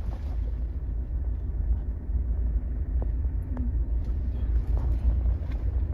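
Steady low rumble of a vehicle on the move, with a few faint knocks and rattles.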